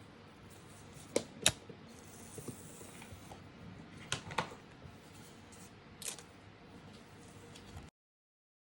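Hand work on a paper sticker collage: a few sharp clicks, mostly in pairs, over a faint rustle of paper and sticker sheets, with a soft hiss about two seconds in. The sound cuts out abruptly near the end.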